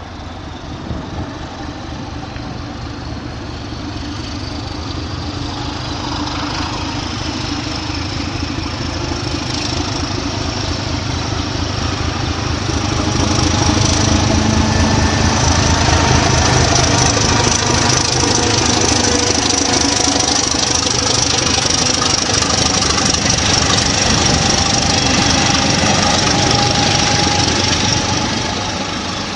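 ČSD class 749 'Bardotka' diesel locomotive's engine working hard as it pulls a passenger train away, growing louder as it approaches, with a deep throb and a high turbocharger whine that climbs in pitch. The sound drops suddenly near the end.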